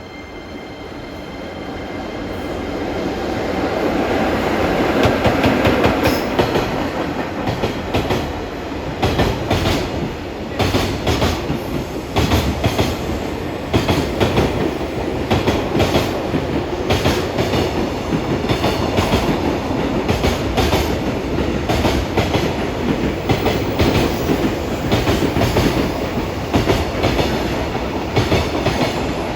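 A JR Freight EF66 100-series electric locomotive passes, growing louder over the first five seconds or so. A long train of container wagons follows, rolling by with a steady rhythmic clatter of wheels over the rail joints.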